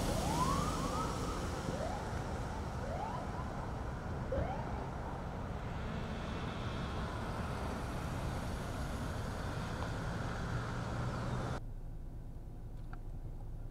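Police SUV engines running slowly with road noise, broken by several short rising siren chirps over the first four or five seconds. Near the end the sound cuts abruptly to a quieter background.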